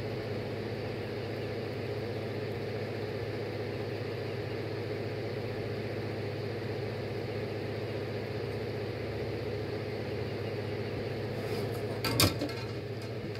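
Electric fan running with a steady hum. A brief clatter near the end.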